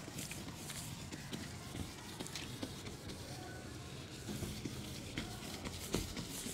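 Whiteboard being wiped clean by hand, a faint scrubbing that goes on throughout, with a few light knocks against the board near the end.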